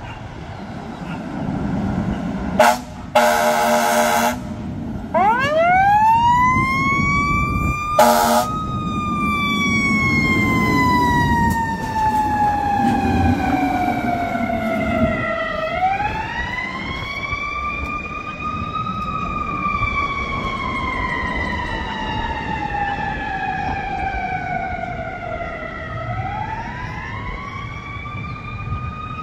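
2021 Spartan Metro Star rescue truck giving a horn blast of about a second and a half, then its siren winds up to a high pitch and slowly falls away, spun back up twice. A short second horn blast comes as the first wind-up peaks, and the truck's engine runs underneath.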